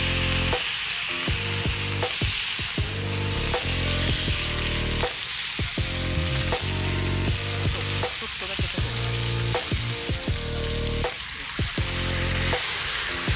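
Food sizzling as it fries in a hot pan, a steady hiss throughout, over background music whose low notes change every second or so.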